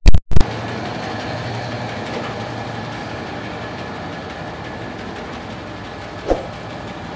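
Two loud pops right at the start, then a steady rushing noise, with one brief tone about six seconds in.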